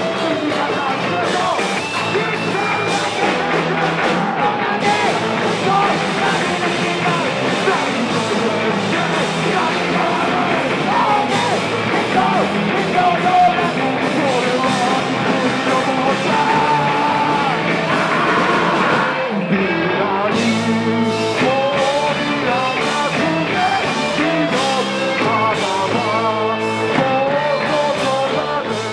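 Punk band playing live: a shouted lead vocal over electric guitar, electric bass and drums. About two-thirds of the way through the song turns to a choppier, stop-start rhythm.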